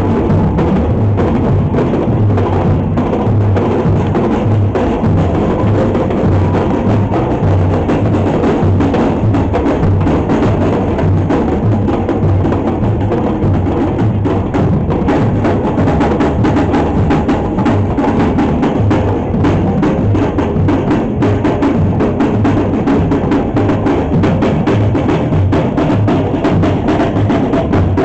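Loud salsa music with busy percussion and a steady low beat.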